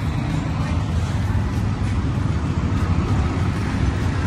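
Steady low rumble of street traffic, with no distinct events.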